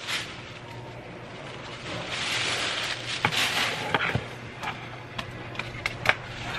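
Packing noises: paper rustling in a cardboard shipping box, with scattered light knocks and taps as things are handled. The rustling is strongest around the middle, and the taps come mostly in the second half.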